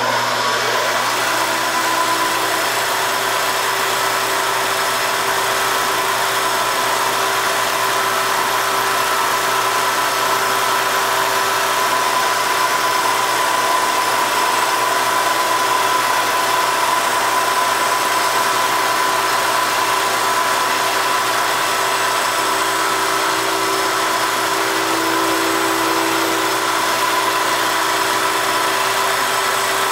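Toolpost grinder running at speed inside the jaws of a spinning three-jaw lathe chuck, taking a very light grinding pass on the jaws, about a ten-thousandth of an inch, to true the chuck's runout. A steady mechanical run with a constant whine.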